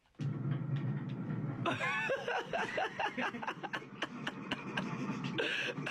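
Snickering and chuckling laughter over a steady rattling clatter of quick clicks.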